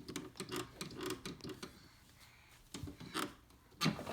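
Light clicks and knocks of toy play-kitchen pieces being handled and fitted back into place: a quick run of small taps in the first second and a half, then a few sharper clicks near the end.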